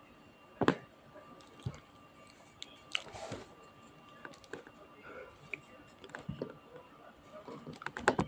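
Scattered clicks and soft knocks, with a sharp one about half a second in and a quick run of clicks near the end, over a faint steady whine.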